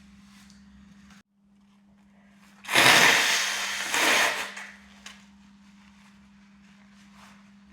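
A person with a head cold blowing their congested nose hard: a sudden loud, noisy blast of about two seconds, with a second surge about a second in, that then fades.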